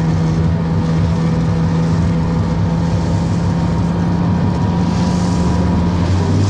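An engine running steadily with a constant hum and a fast, even pulse underneath.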